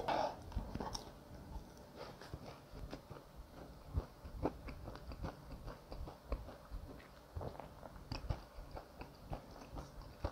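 Close-miked chewing of a mouthful of kkanpung-yuk, deep-fried pork in sauce: soft wet chews and small clicks at an uneven pace.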